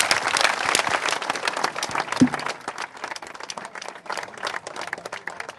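A crowd applauding the end of a speech, the clapping thinning out and dying down over the last few seconds. There is a brief pitched call about two seconds in.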